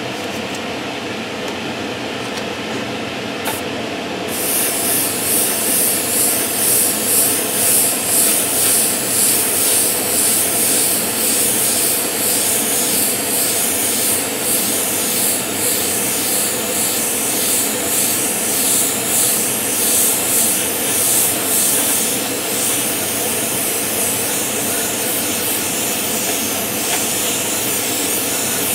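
Airbrush spraying heavily thinned paint at raised air pressure and flow: a hiss that starts about four seconds in and swells and fades in quick repeated passes, steadier near the end. A steady hum from the air compressor runs beneath it.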